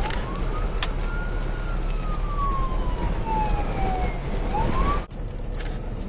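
A siren wailing slowly, its pitch rising and then falling over several seconds, over a steady rush of noise. It cuts off suddenly about five seconds in.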